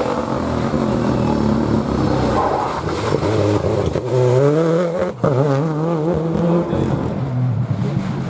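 Rally car engine running at high revs under hard acceleration, its pitch wavering and climbing through gear changes, with a brief cut in the sound about five seconds in.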